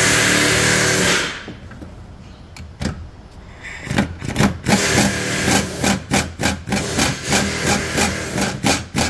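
Air ratchet on a shop air line running in one long burst with hissing exhaust air, then triggered in a quick series of short bursts, about two a second, working a fastener at the brake master cylinder.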